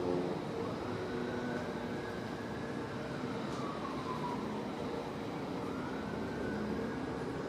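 Whelen WPS-4004 electronic outdoor warning siren sounding a slow wail: the pitch climbs, falls back about four seconds in and climbs again near the end, over a steady low hum.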